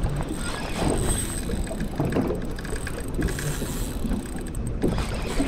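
Wind on the microphone and water moving against the hull of a small fishing boat, a steady rough rush with a few faint irregular knocks.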